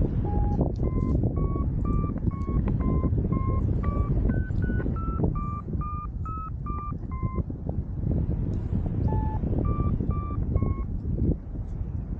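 Paragliding variometer beeping in short repeated tones whose pitch rises and then falls, the climb signal of lift, over strong wind noise on the microphone. The beeps break off for a moment and then sound a few more times before stopping.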